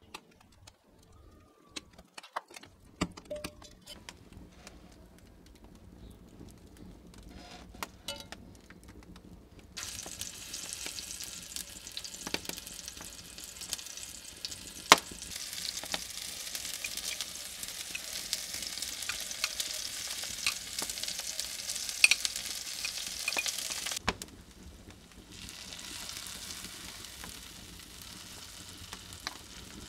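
Food sizzling in a skillet over a wood fire, with scattered crackles and sharp pops. The first seconds hold only crackling; the sizzle starts suddenly about ten seconds in and turns quieter near the end, while a wooden spoon stirs the pan.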